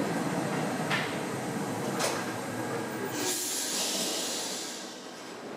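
Paris Métro train running along a station platform, with two sharp clicks about a second apart. About three seconds in a high hiss rises, then the sound fades.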